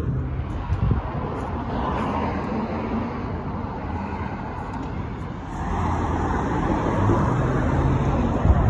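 Outdoor road traffic noise, cars going by, with a low, uneven rumble that swells a little in the second half.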